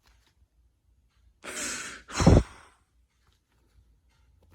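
A man's heavy sigh: a rushing breath in about a second and a half in, then a louder, deeper breath out that blows on the microphone.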